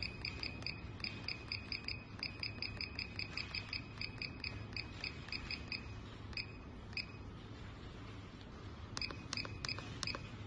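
Digital electric chiropractic adjusting gun giving a rapid series of short, high-pitched electronic beeps, about four or five a second, which break off about six seconds in and then return as a few scattered beeps and clicks near the end. A low steady hum runs underneath.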